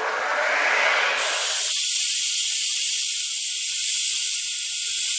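Circular-blade power saw running: the motor winds up over about the first second, then runs at full speed with a loud, steady, high-pitched hiss.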